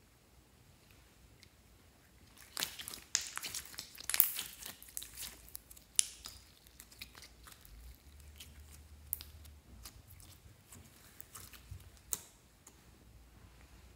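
Hands kneading and squeezing a glossy green slime, making sticky crackling squelches and small pops. These come in a busy cluster from a few seconds in and then thin out to a few scattered clicks.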